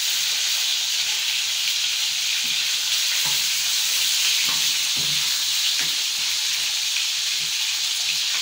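Chicken pieces frying in hot oil: a steady, dense sizzle.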